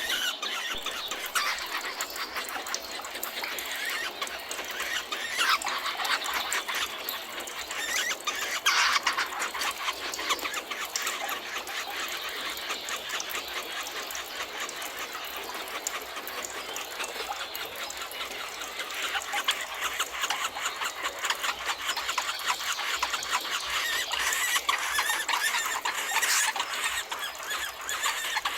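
Dense, continuous chorus of many birds chattering and calling shrilly, with a few louder calls standing out now and then.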